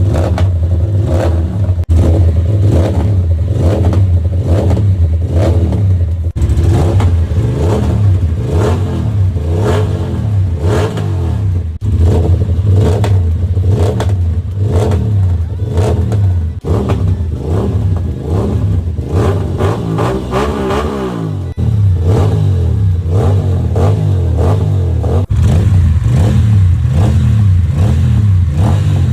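Aprilia RS 457's parallel-twin engine revved repeatedly through different aftermarket exhausts, the pitch rising and falling with each blip. The exhaust note changes abruptly every four to six seconds as one exhaust follows another.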